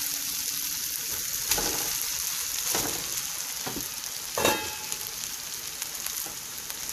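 Vegetables sizzling in ghee in a nonstick wok as cooked rice is tipped in and turned with a wooden spatula: a steady frying hiss with a few soft knocks and scrapes. The loudest is a short ringing clink about four and a half seconds in.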